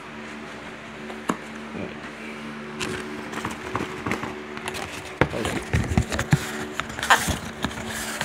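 Handling noise from a cardboard box and the recording phone: scattered rustles, taps and knocks, busier from about five seconds in, over a steady low hum.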